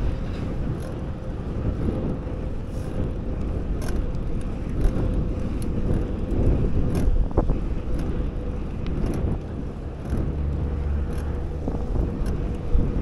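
Riding a bicycle along a city road: a steady low rumble of wind and tyre noise on the handlebar-mounted camera, with frequent small clicks and rattles from the bike, under a faint steady hum.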